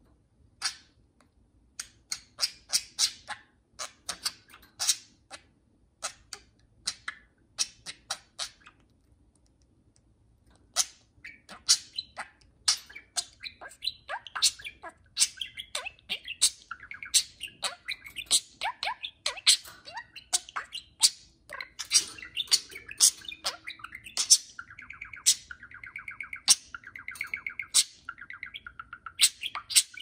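Two budgerigars chirping and chattering to each other: sharp, separate chirps at first, then after a short pause a dense run of chirps that becomes warbling chatter in the second half.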